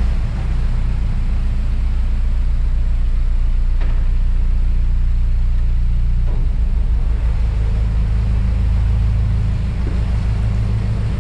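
Narrowboat's engine running steadily, an even low drone.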